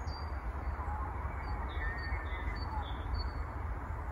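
Receiver hiss and static from an FX4CR HF transceiver's speaker. It is a steady rush cut off sharply above the voice range, with short high bird chirps over it.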